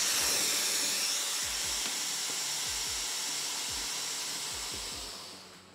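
Air hissing out of an inflatable boat tube through its push-and-turn valve, locked open to deflate the chamber: a steady rush of air that weakens and dies away near the end as the pressure drops.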